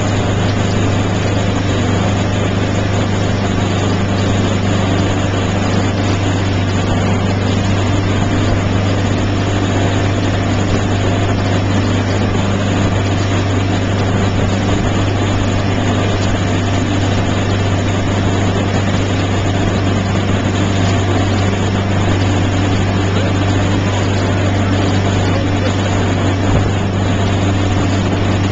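Towing motorboat's engine running steadily at speed, a constant low drone, over the rush of the boat's wake.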